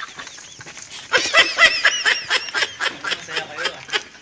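A man laughing: soft snickering, then about a second in a fast run of short, high-pitched bursts of laughter, about six a second.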